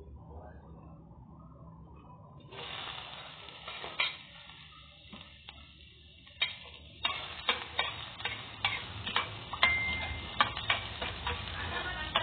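Minced garlic sizzling in hot oil in a stainless steel pan, the sizzle starting suddenly about two and a half seconds in. From about seven seconds on, a spatula clicks and scrapes against the pan many times as the garlic is stirred, over the steady sizzle.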